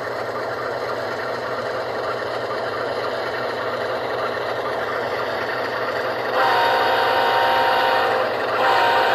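ESU LokSound decoder sound of a GE ES44AC diesel engine playing through the HO model's small speakers: a steady engine drone that slowly gets louder. About six seconds in comes a long multi-chime horn blast, and a second blast starts just before the end.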